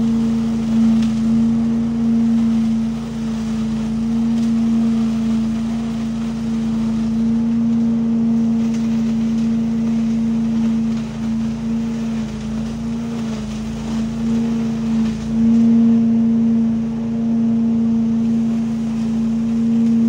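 Trailer-mounted leaf vacuum running steadily, a constant engine-and-fan drone that wavers briefly a little past halfway.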